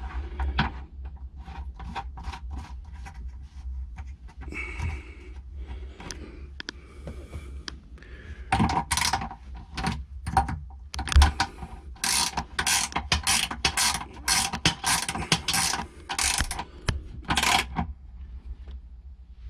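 Ratcheting wrench clicking in repeated runs as an exhaust gas temperature sensor is tightened back into a personal watercraft's exhaust. The clicks are sparse at first and come in quick, dense runs in the second half.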